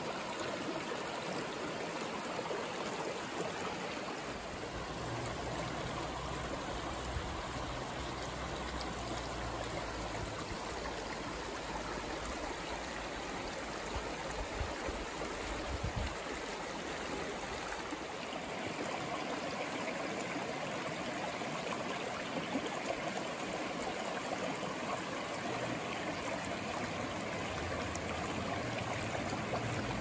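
Shallow, rocky creek running over stones: a steady rush of flowing water with a trickle and splash through the small riffle.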